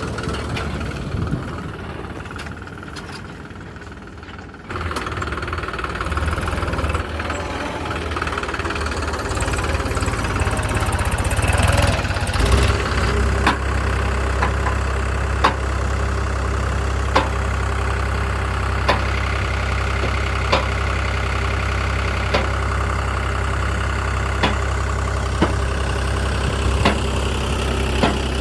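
Diesel engines of a backhoe loader and farm tractor running at work, growing louder about five seconds in. Through the second half come sharp ticks every second or two.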